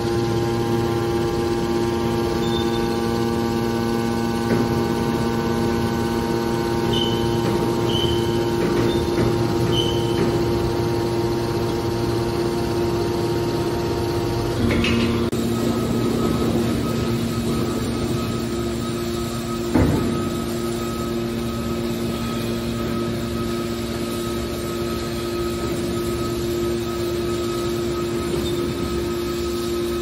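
Hydraulic metal scrap baler running: a steady electric motor and hydraulic pump hum and whine. The tone shifts about halfway through, and there is one short knock about two-thirds of the way in.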